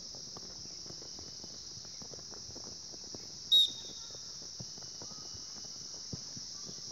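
Steady high-pitched insect chorus from the surrounding trees and grass, with faint scattered ticks and one short, loud, sharp high-pitched blip about three and a half seconds in.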